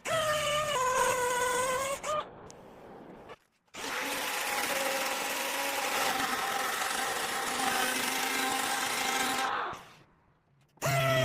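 Handheld electric power tool running with a steady whine, in short clips cut together. First about two seconds of whine, then a brief cut to silence, then about six seconds of a grittier run whose whine rises slowly before it stops, a second before the end.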